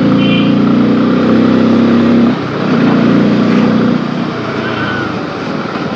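Bajaj Pulsar F250's single-cylinder engine running steadily while the bike rides through town, with wind and road noise. The engine note drops a little in level about two seconds in.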